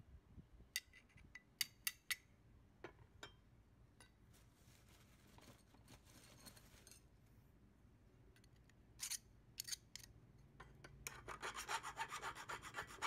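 A metal hand tool scraping a painted steel angle piece: a fast run of rasping back-and-forth strokes, about seven a second, fills the last two seconds. Before that come a few sharp clicks and taps of metal handled on wood, with a faint rasping hiss midway.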